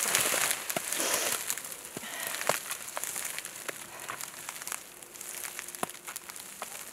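Stretched plastic cling film crinkling and crackling, with scattered sharp clicks, as a person shifts her weight on it. It is busier in the first seconds and quieter toward the end.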